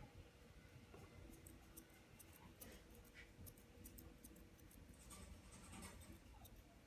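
Faint, quick snips of grooming scissors trimming a small dog's leg hair, a scatter of light clicks.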